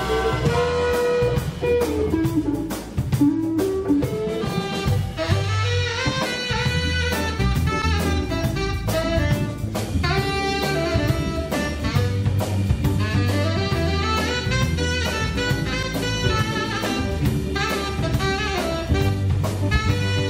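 A big band playing jazz live, with saxophones and brass over drum kit, electric bass and guitar.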